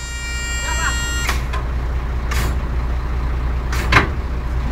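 Hydraulic winch on a 6x6 military truck hauling in, over the steady low drone of the truck's engine: a high whine cuts off about a second in, followed by a few short hisses. The hydraulics are working well.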